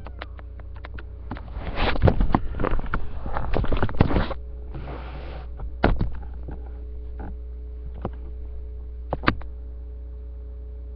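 Rustling and knocking of hands and a kitten moving on bedding close to a webcam microphone, loudest for about three seconds starting about two seconds in, with a few sharp clicks later on, over a steady electrical hum.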